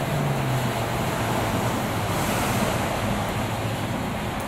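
Betts vertical turret lathe with a 108-inch table running while boring: a steady, loud rushing machine noise with a low hum underneath.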